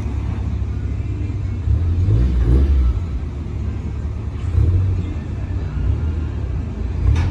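Honda S2000 with an HKS cat-back exhaust, running at low revs with a deep exhaust rumble that swells twice as the revs rise briefly.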